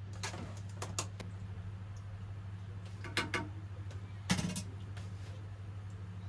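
Scattered clicks and knocks of a utensil and a stainless steel bowl against the kitchen counter, the loudest a little past four seconds in, over a steady low hum.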